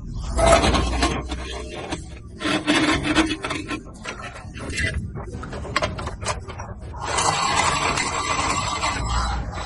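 Harsh grinding and rasping from an electric vehicle's motor and gearbox in uneven bursts, with a longer spell near the end. This is typical of stripped teeth on the motor gear and the differential gear it meshes with.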